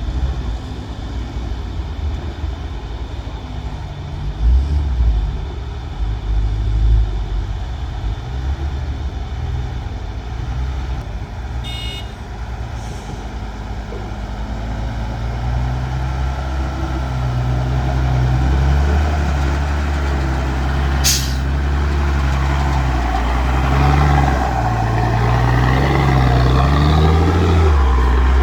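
Diesel dump truck engine pulling under load as the truck climbs the ramp out of the pit, growing louder toward the end. There is a brief sharp hiss about two-thirds of the way through.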